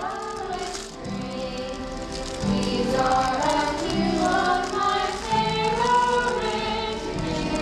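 A group of young stage performers singing together, with notes held about a second each.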